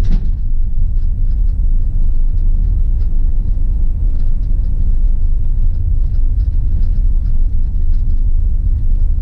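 Steady low rumble of a van's engine and road noise inside the cabin as it drives slowly, towing a travel trailer.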